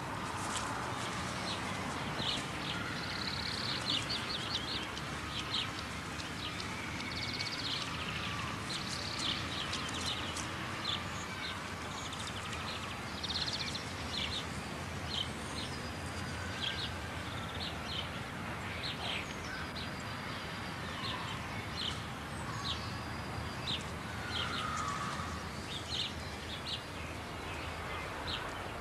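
Small birds chirping outdoors: short high chirps and a few quick trills, scattered irregularly over a steady low background noise.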